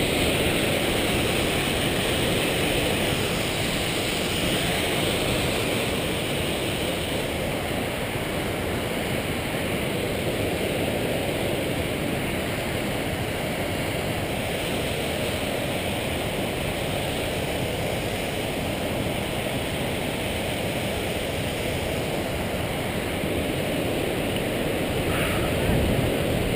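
Steady rush of a whitewater creek cascading over rocks, a constant even roar of water.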